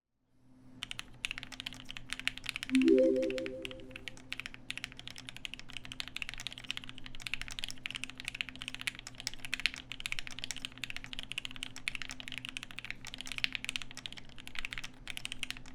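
Typing on the Tokyo Keyboards Alix40 mechanical keyboard with H1 switches: a fast, continuous run of key clicks and clacks. A brief low tone sounds about three seconds in and fades within a second.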